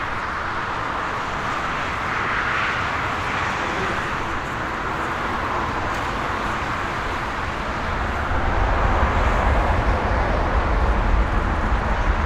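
Jet airliner engine noise: a steady rush with a deeper rumble building about eight seconds in.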